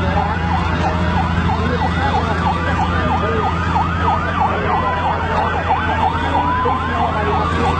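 Several emergency-vehicle sirens sounding at once: a fast yelp sweeping up and down several times a second over a slow wail that rises and falls. A steady low drone runs beneath them.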